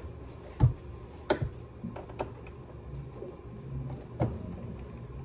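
A Phillips screwdriver clicking and knocking against the metal screw and cover of a PS5's M.2 expansion slot: a handful of sharp separate clicks a second or more apart, over a low steady hum. The screw is not coming loose.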